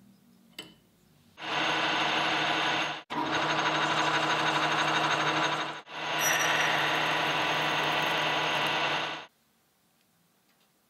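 Small metal lathe running steadily with a whine, its carbide tool cutting a small metal pin held in a collet; the sound breaks off briefly twice and stops about a second before the end. A single light click comes just before it starts.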